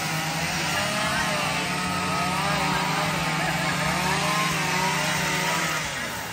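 Several chainsaws running at once, their pitch rising and falling as they are revved while carving wood, over a steady low engine hum.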